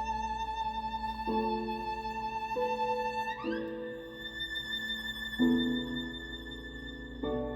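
Background music: a violin holding long notes with vibrato over slow changing chords, with a slide up to a higher note about three and a half seconds in.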